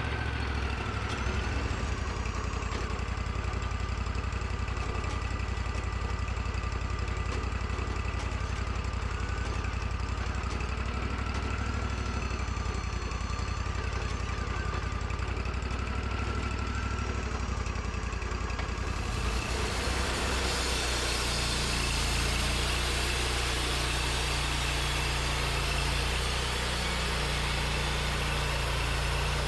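Portable sawmill's engine running steadily with a wavering whine; about two-thirds of the way in, a louder, hissier noise joins it and continues.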